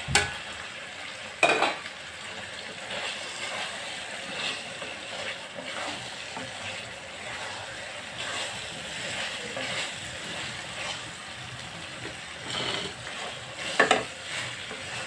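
Thick masala gravy sizzling in oil in a steel kadai while chicken koftas are stirred through it with a wooden spatula, a steady frying hiss with a few sharp knocks against the pan, about a second and a half in and again near the end.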